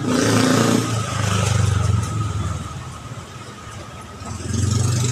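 Motor vehicle engine running close by in street traffic, its low hum swelling near the start and again near the end.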